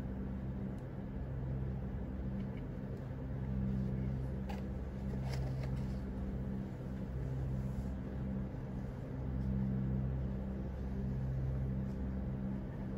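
Low rumbling drone of a few held deep tones that swell and fade slowly, with a few faint taps about four to five seconds in.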